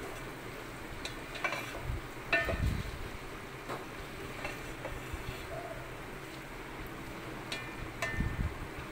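Spatula stirring chopped okra in an aluminium pot, scraping and clinking against the metal several times with brief ringing, over a steady low sizzle of the vegetables frying on a slow flame.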